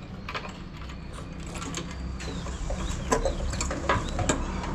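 Irregular mechanical clicks and ticks over a low, steady hum.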